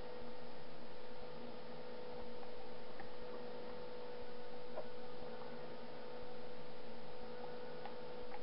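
A steady electrical hum that swells for about a second every two seconds, with a few faint clicks of a spatula stirring a soft mixture in a plastic tub.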